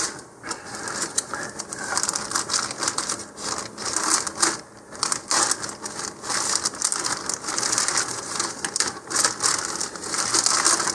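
Thin clear plastic bag crinkling and rustling in irregular bursts as it is cut open with scissors and handled.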